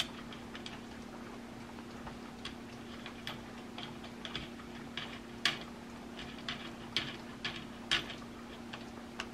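Light metal clicks and ticks of an M1 Garand's gas cylinder lock being threaded by hand onto the muzzle end of the barrel, coming irregularly, with a few sharper clicks in the second half. A steady low hum runs underneath.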